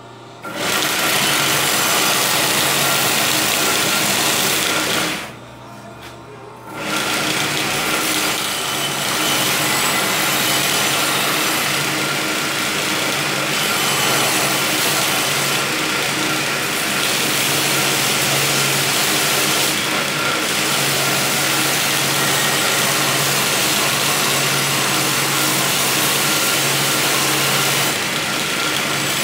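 Homemade belt sander driven by a sewing-machine motor, grinding a steel blade pressed against the abrasive belt: a loud, steady grinding hiss over the motor's low hum. About five seconds in the blade is lifted off for a moment, leaving only the hum, then the grinding resumes.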